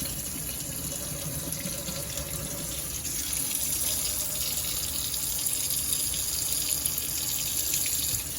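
Kitchen faucet running hot water steadily into the sink and down the drain, a steady hiss that grows a little louder about three seconds in.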